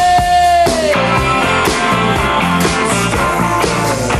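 Rock music soundtrack: a long held note bends downward about a second in, over a dense band with sharp repeated drum-like strokes.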